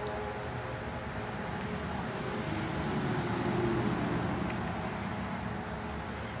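Steady rushing outdoor noise, like road traffic, with a low hum that swells to a peak about four seconds in and then eases.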